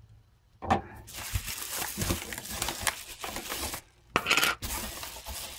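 Packaging being handled: continuous crinkling and rustling with a few knocks, starting about half a second in, with a louder burst of crinkling about four seconds in.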